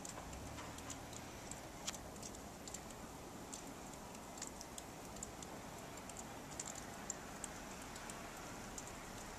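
Faint hiss of falling snow with scattered, irregular light ticks, a few a second, as flakes and ice land near the microphone.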